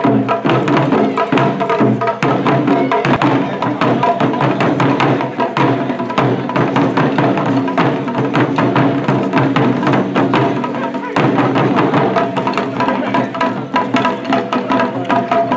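Japanese taiko drums beaten in a dense, driving rhythm, with sharp clicks of wooden sticks, over steady sustained tones from other music.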